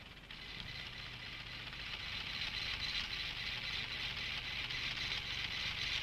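Computer line printer running: a steady high hiss that comes in just after the start and grows louder, over a faint low hum.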